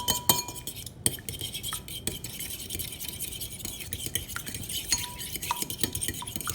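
Egg being beaten with a metal utensil in a bowl: quick, continuous clinking and tapping against the bowl, which rings faintly now and then.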